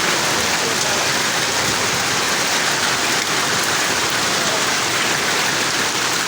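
Heavy rain falling with hail, a dense, steady hiss of drops.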